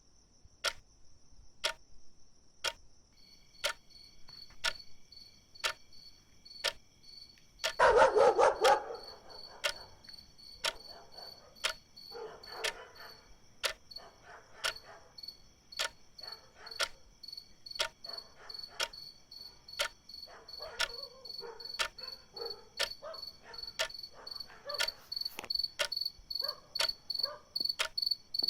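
A clock ticking steadily, a little more than once a second, under crickets chirping in a continuous high trill. A loud sudden noise about eight seconds in, and intermittent dog barking through the second half.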